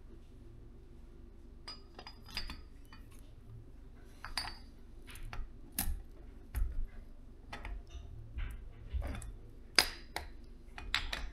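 Scattered metallic clinks and light knocks of a piston and connecting rod from a Case IH Magnum 7250's Cummins engine being handled and fitted together. A few clinks ring briefly, the sharpest near the end, over a low steady hum.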